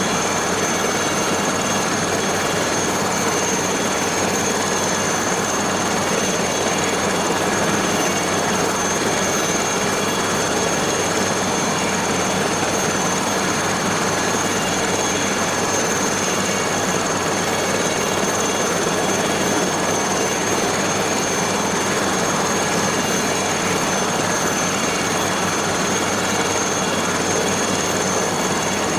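Aérospatiale SA315B Lama helicopter's Turbomeca Artouste turboshaft and rotor running steadily: a dense, even noise with a steady high whine over it.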